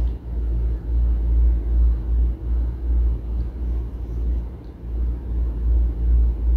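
Low, uneven rumble, with no blender motor running.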